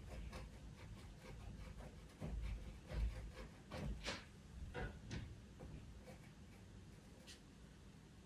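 Pastel pencil scratching on pastel paper in short, quick strokes, busiest in the middle and thinning out toward the end.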